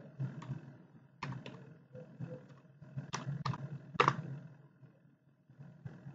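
Typing on a computer keyboard: a quick run of separate keystrokes over about four seconds, the loudest stroke about four seconds in.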